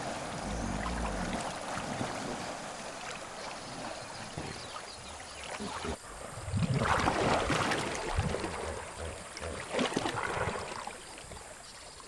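River water sloshing and splashing around hippos moving in the shallows, with a louder stretch of splashing about six to eight seconds in.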